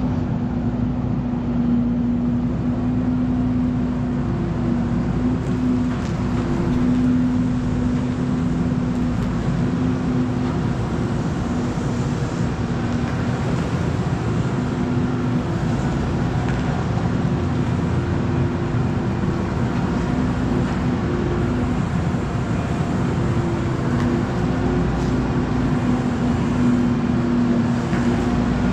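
Tractor engine running steadily while driving, a constant droning hum.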